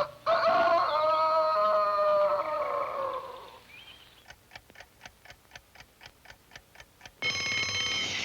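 Animated-cartoon sound effect of a clock ticking, about five even ticks a second, after a falling, fading tone. Near the end a loud, steady, ringing tone with many overtones cuts in.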